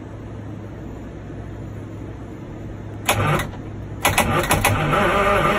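Starter cranking a Detroit Diesel 6-71 inline two-stroke diesel: a short burst about three seconds in, then a second, longer attempt a second later that carries on loudly to the end, with a steady low hum before it.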